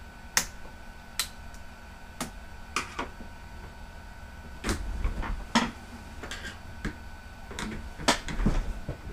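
Irregular sharp plastic clicks and light knocks, about a dozen, from handling and prying apart a laptop's case and keyboard.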